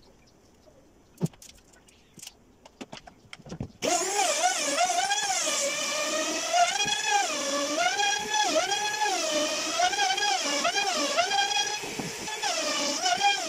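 Handheld trim router switching in about four seconds in and running while it cuts a groove into a wooden door panel. Its high motor whine dips and recovers in waves as the bit takes load along the cut. Before it starts there are only a few faint taps from marking out.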